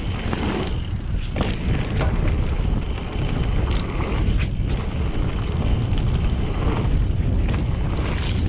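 Mountain bike rolling through dirt jumps: wind buffeting the microphone and tyres rumbling over the dirt, with a handful of short, sharp knocks and rattles from the bike.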